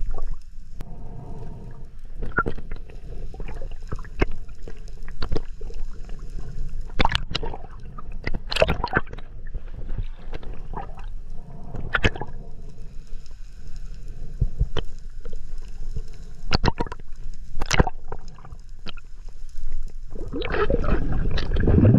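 Underwater sound picked up by a camera in the sea: a low muffled rush of water with scattered sharp clicks and pops, swelling louder near the end.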